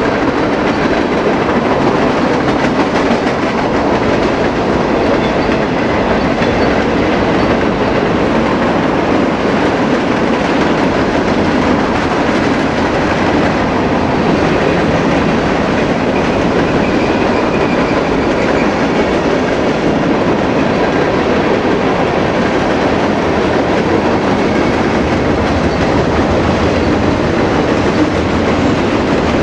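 Cars of a mixed freight train (boxcars, covered hoppers and gondolas) rolling past: a steady, loud noise of steel wheels running on the rails.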